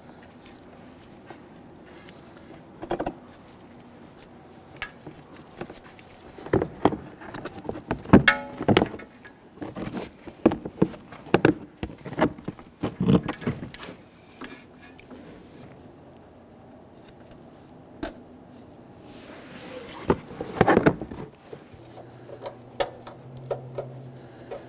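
Hands routing a wheel-speed sensor wire through a wheel well: irregular clicks and taps as the wire's plastic clips are pressed into the plastic fender liner, with a burst of rustling as the liner is pulled back about twenty seconds in.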